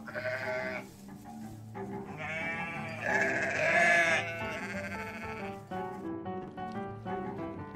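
Donkey braying: a short call at the start, then a long drawn-out bray of about two and a half seconds in the middle, over light background music that carries on alone near the end.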